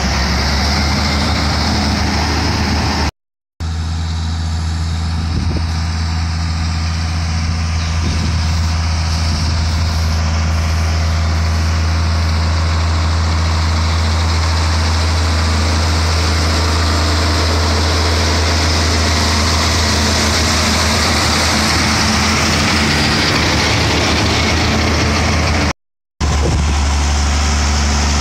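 John Deere 4430 tractor's six-cylinder diesel engine running steadily as it pulls a mower conditioner through tall hay grass: a loud, even low drone with hiss above it. The sound breaks off for a moment twice, about three seconds in and near the end.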